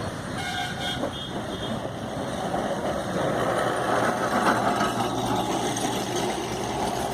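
Electric tram running on its rails with a steady rumble that swells a few seconds in. A vehicle horn toots briefly about half a second in.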